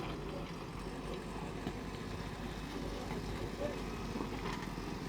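JCB excavator's diesel engine running steadily with an even low hum.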